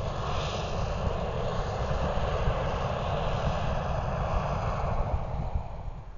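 Hot-air balloon's propane burner firing in one long steady roaring blast that fades near the end, over a low rumble underneath.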